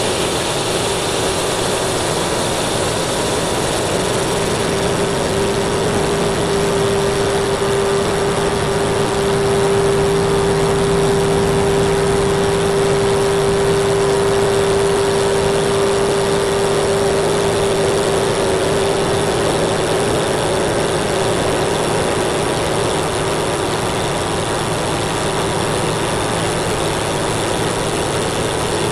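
Metal lathe (1972 Weiler Matador SV) turning out the inside of a tough steel ring blank, played back sped up sixteen-fold: a dense, steady machine noise with a strong steady tone that is loudest in the middle stretch.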